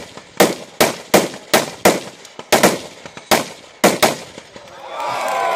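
Rapid semi-automatic rifle fire from two shooters racing side by side at steel targets: about ten sharp, irregular shots in four seconds. Near the end, spectators' voices and cheering rise as the run finishes.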